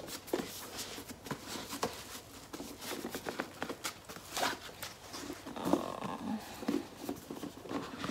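Handling of a cardboard gift box and its fabric ribbon: rustling, scraping and many small taps and clicks as the ribbon is pulled off and the box is turned in the hands.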